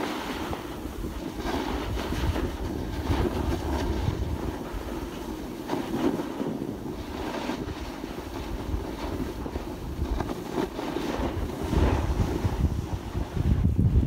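Wind buffeting a phone microphone: a steady rough rush with low rumbling gusts that grow stronger near the end.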